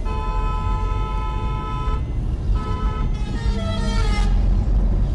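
A vehicle horn honks for about two seconds, gives a short toot, then sounds again, its pitch falling. Underneath is the low, steady road rumble heard inside a moving car.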